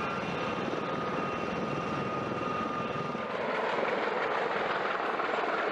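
Aircraft engine noise: a steady rush with a thin high whine that stops about three seconds in, after which the rush gets a little louder.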